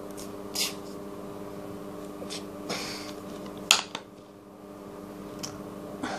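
A plastic squeeze bottle of mayonnaise being pressed, giving a few short squirting, sputtering sounds, with one sharp click a little past halfway. A steady hum runs underneath.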